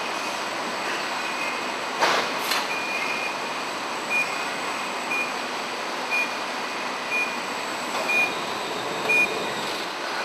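Pallet-handling machinery on a glass-bottle packaging line running with a steady hum, with two clanks about two seconds in. From about four seconds in, a warning beeper gives short beeps about once a second.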